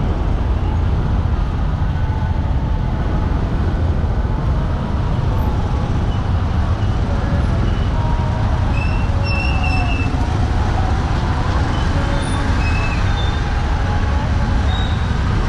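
Street ambience: a steady, continuous rumble of road traffic.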